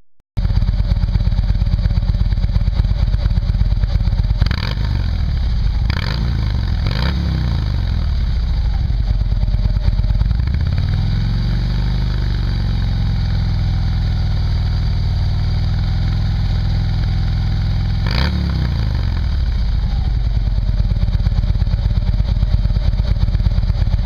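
Harley-Davidson touring motorcycle's V-twin running through stock headers with catalyst and SuperTrapp Stout 4-inch slip-on mufflers. It holds a steady idle, blipped quickly about four and a half, six and seven seconds in, revved up and back down more slowly around eleven to thirteen seconds in, and blipped once more near eighteen seconds.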